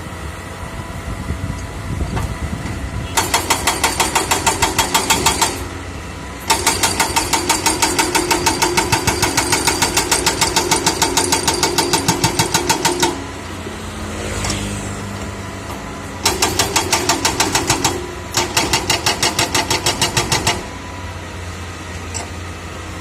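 Excavator diesel engine running steadily, broken by four spells of rapid, evenly spaced metallic pounding at about five or six strikes a second, the longest lasting about six seconds.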